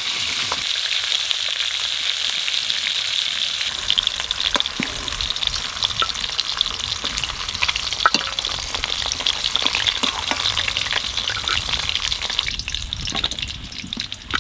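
Eel fish pieces rubbed with salt and turmeric sizzling and crackling as they fry in hot oil in a karahi. The crackle thins out near the end.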